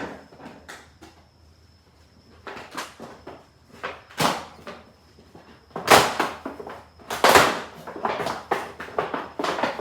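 Packaging and a tool case being handled and opened: irregular rustles, scrapes and plastic clacks, loudest about six seconds in and again just after seven seconds.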